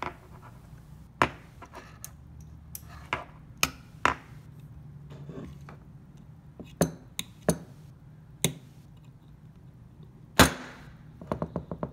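Irregular sharp metal clicks and taps as a folding key-set screwdriver is fitted to screws inside an opened hard drive and the drive is handled. One louder knock comes about ten seconds in, then a quick run of small clicks.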